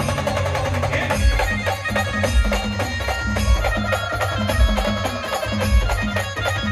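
A Maharashtrian band playing a traditional folk tune: a sustained lead melody over a steady beat of low drum strokes.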